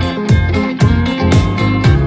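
Background music with a steady beat, about two beats a second, over sustained pitched instrument notes.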